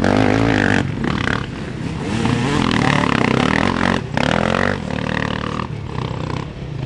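Off-road motorcycle engines revving, their pitch rising and falling.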